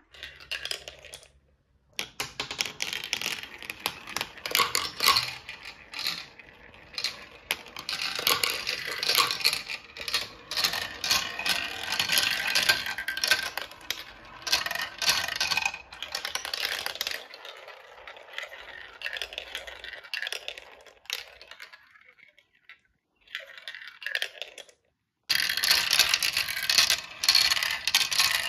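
Small balls rolling and clattering down plastic marble-run tracks, a dense stream of rattling clicks. It thins out for a few seconds, cuts out briefly, then starts up again near the end.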